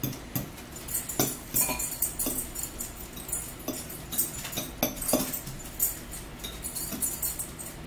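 Metal forks clicking and scraping against plates, a run of short sharp clicks with some chewing, as two people eat spaghetti.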